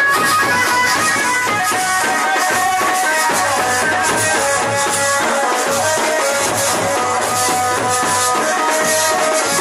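Traditional Jaunsari folk dance music: a melody of held notes stepping up and down over a steady drum beat.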